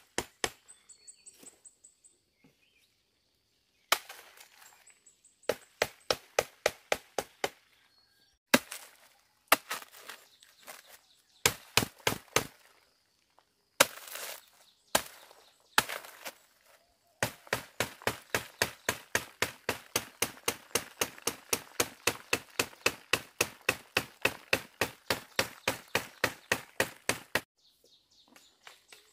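Machete chopping and knocking at a papery ant nest on a branch, breaking it open for the ant eggs: short runs of sharp strikes, then a long steady run of about five to six strikes a second that stops shortly before the end. Faint bird chirps sound in the pauses.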